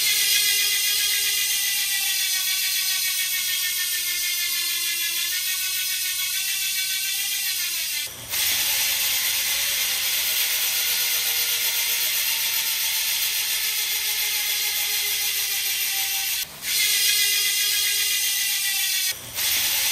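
DT Swiss star ratchet freehub ticking in a fast, steady buzz as the rear wheel coasts on a work stand. The 54-tooth and 60-tooth ratchets are heard in turn, with abrupt switches three times. In the first stretch the buzz drops in pitch as the wheel slows.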